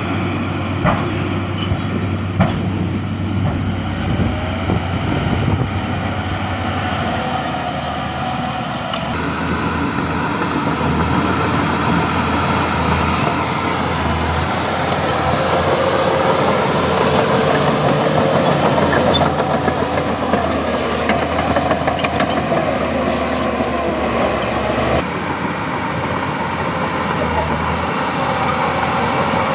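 Diesel engines of heavy earthmoving machinery running steadily, with a few sharp knocks in the first few seconds. The sound changes abruptly twice.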